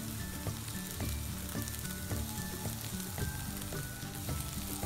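Chopped tomato and green chilli sizzling steadily as they fry in oil in a frying pan, with soft background music playing over it.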